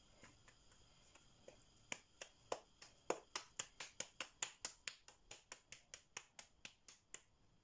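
Hands patting a floured ball of dough between the palms to flatten it into a disc: a rapid run of light slaps, about four a second, starting about two seconds in.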